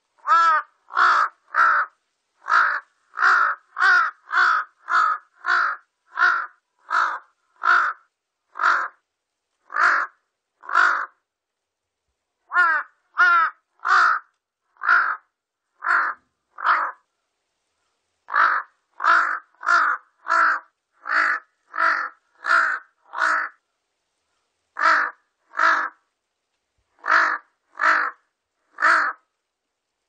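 Large-billed crow calling: a long series of short caws, about one to two a second, in runs broken by a few short pauses.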